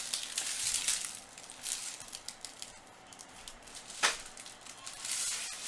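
Trading-card packs and cards being handled: foil wrappers crinkling and cards sliding and clicking against each other, with one sharp snap about four seconds in.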